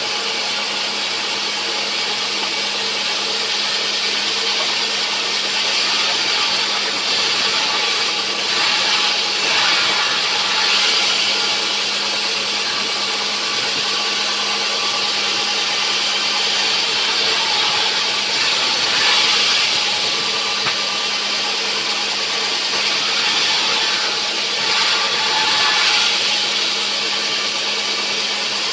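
Sawmill saw running with a steady motor hum while cutting rubberwood, the cutting noise swelling and easing several times.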